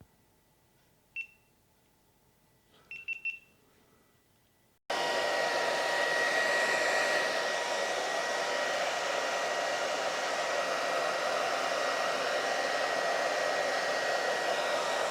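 A few short electronic beeps, then about five seconds in a heat gun starts blowing hot air. It runs with a steady rushing and a thin steady whistle, heating the glued front of an iPad to soften its adhesive.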